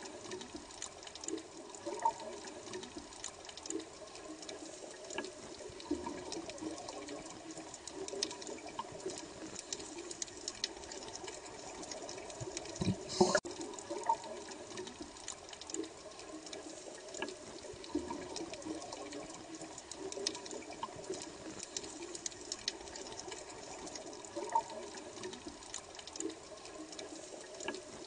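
Bubbling water, running steadily with frequent small pops and one louder pop about 13 seconds in.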